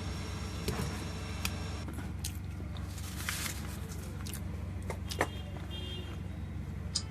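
Steady electrical hum of bench repair equipment, with a high hiss that stops about two seconds in and scattered small clicks and taps of tools on the phone board.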